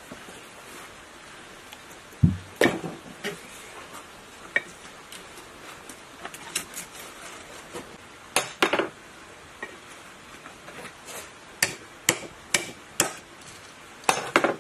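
Hammer striking a chisel to cut the burnt copper windings out of a sewage pump motor's steel stator housing. The sharp metallic knocks come at irregular intervals in small bunches, with lighter clinks of the tools in between.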